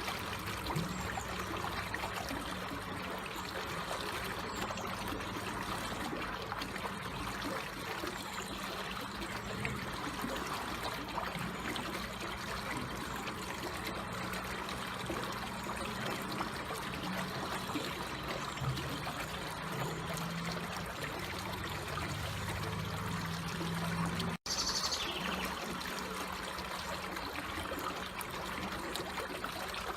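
Water trickling and flowing steadily and gently, like a small stream. It drops out for a split second about two-thirds of the way through, followed by a short falling whistle.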